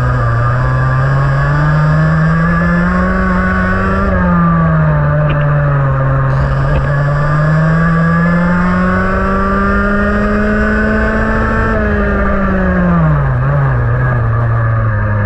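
Restricted 125cc IAME X30 two-stroke TaG kart engine at full throttle, its note climbing steadily in pitch, dipping briefly about four seconds in, climbing again on a longer pull, then the revs falling away sharply near the end before picking up once more.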